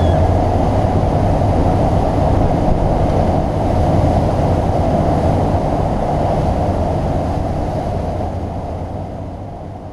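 Steady rumble of a ferry's engines and the rush of its churning wake, with a strong low hum. It fades out near the end.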